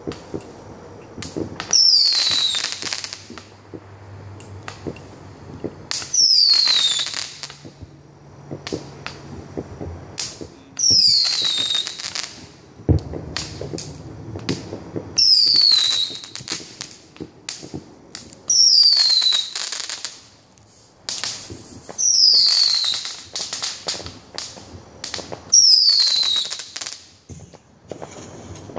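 Fireworks going off: seven whistling shots, one about every four seconds, each with a falling whistle and a burst of crackle. Scattered pops and crackles fall between them.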